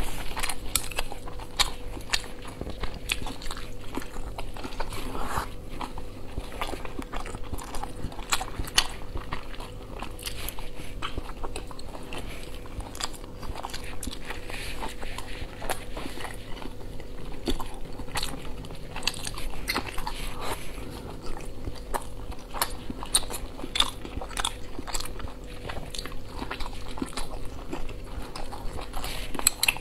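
Close-miked mouth sounds of a person eating boiled dumplings: biting and wet chewing, with frequent small sharp clicks and smacks.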